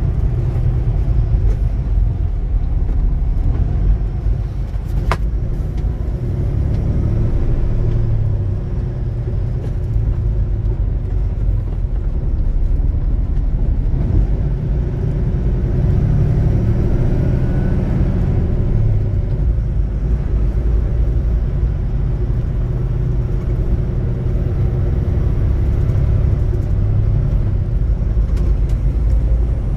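Steady low rumble of a big truck driving on a wet highway, heard from inside the cab: engine and tyre noise, with one sharp click about five seconds in.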